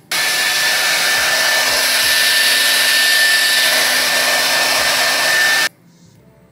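Handheld hair dryer blowing air: a steady rush with a thin high whine. It switches on just after the start and cuts off suddenly about five and a half seconds later.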